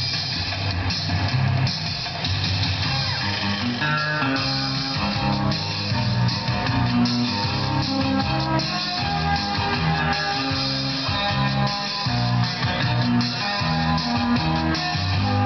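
Upbeat instrumental dance music with guitar, bass and drum kit keeping a steady driving beat.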